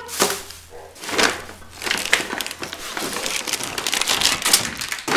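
Crinkling and rustling in irregular bursts, as crinkly material is handled.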